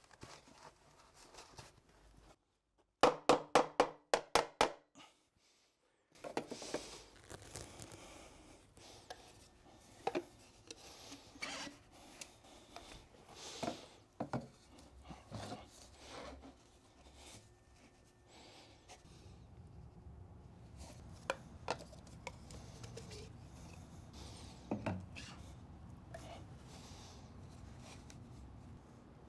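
PVC drain pipe and fittings being handled and fitted together: scattered knocks, clicks and scrapes of plastic. A few seconds in comes a quick run of about ten loud, sharp taps, and a low steady hum sets in past the middle.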